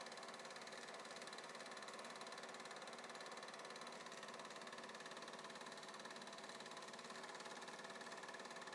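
A faint, steady mechanical whir with a thin high tone running through it, unchanging throughout.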